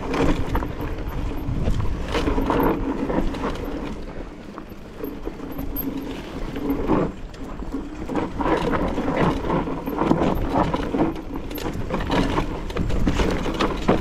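Mountain bike ridden over a rough trail: tyres on stony ground and the bike's parts rattling in irregular knocks, easing off briefly about four seconds in.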